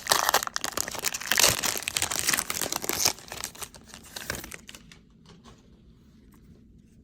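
A Panini Mosaic baseball card pack's wrapper being torn open and crinkled by hand: dense crackling for about three seconds that dies away over the next two.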